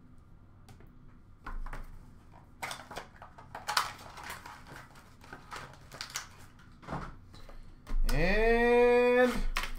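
Light clicks and rustling as trading card packs and a plastic card holder are handled, then near the end a loud drawn-out voiced 'aaand' that rises in pitch and then holds.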